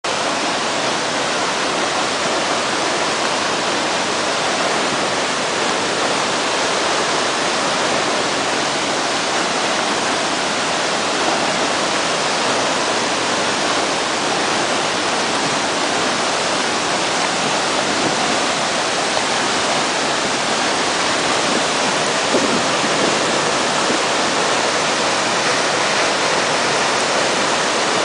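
Waterfall plunging into a rock pool, a loud, steady rush of falling water and spray.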